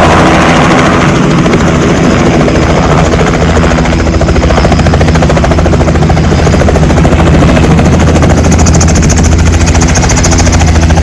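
Small two-bladed helicopter running close by as it hovers low over a landing pad: a steady, fast rotor beat over an engine drone.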